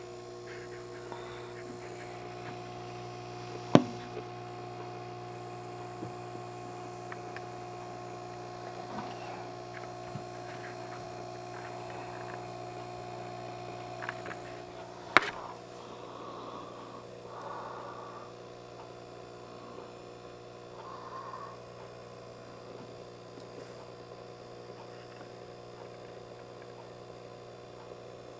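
Steady electrical mains hum with several constant tones, broken by two sharp clicks, about four and fifteen seconds in.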